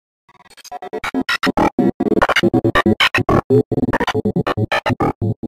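Logo intro sting: a fast, choppy run of short electronic music hits, several a second, fading in and then cutting off abruptly.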